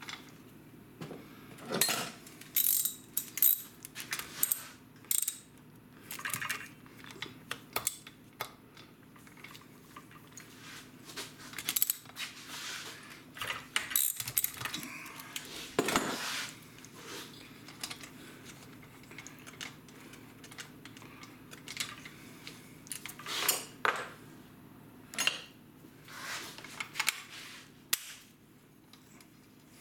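Irregular clicks, taps and rattles of hand tools and metal and plastic parts as a Stihl MS462 chainsaw is taken apart, with a wrench working on its fasteners. The handling gets busier and louder about halfway through, then eases off.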